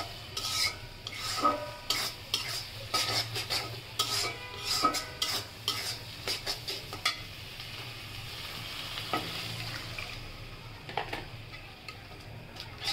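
Metal spatula scraping and stirring prawn masala in a metal wok over frying sizzle, in quick repeated strokes. After about seven seconds the stirring mostly stops and a steadier sizzle remains, with a few more scrapes.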